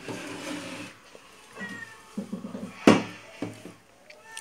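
A cat meowing several times in short calls, with one sharp metallic clink of a steel lid about three seconds in, the loudest sound.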